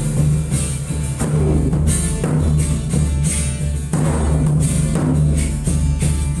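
Didgeridoo playing a steady low drone with shifting overtones, over a beat of drum strikes.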